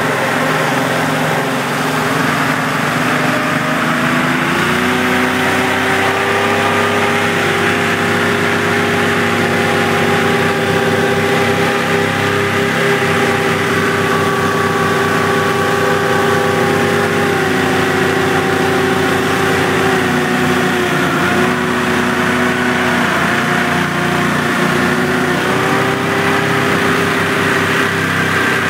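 Hovercraft engine running. Its speed steps up in the first few seconds, then holds mostly steady, with a few brief dips in pitch later on.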